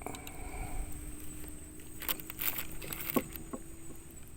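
Steady high-pitched insect drone, with a few clicks and rustles around the middle and two short falling chirps near the end.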